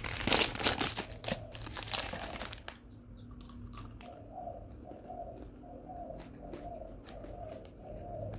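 A plastic ice cream wrapper crinkling loudly as the bar is pulled out of it, for the first few seconds. This is followed by quieter, occasional crisp crunches of teeth biting through the chocolate-and-nut coating of the ice cream bar.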